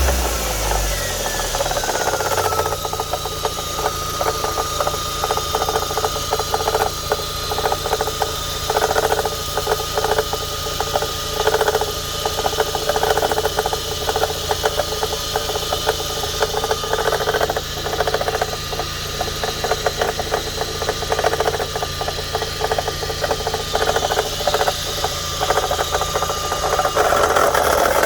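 Audi A3 1.8 engine dropping back from a rev to idle in the first two seconds, then idling with a rapid knocking rattle ('toc, toc') and a steady high squeal. The owner traced both the knock and the squeal to a faulty alternator.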